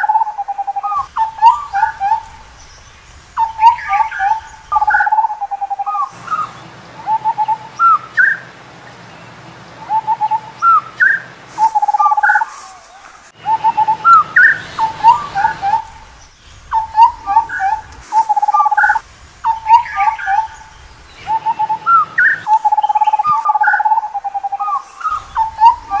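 Indian scimitar babbler calling: bouts of short, clear whistled notes, some held and some sliding upward, repeated every few seconds with brief pauses between bouts.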